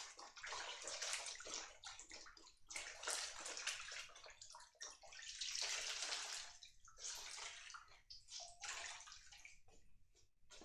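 Water sloshing and splashing in a metal basin as hands scrub something in it, in uneven swells with brief pauses.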